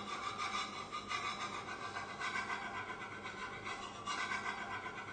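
Faint steady hiss with a faint hum underneath and no distinct events.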